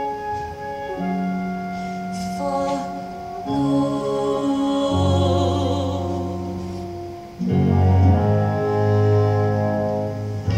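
Theatre orchestra playing the slow closing bars of a stage-musical duet: sustained chords changing every second or two, with a wavering held note near the middle and a fuller, louder chord coming in about three-quarters of the way through.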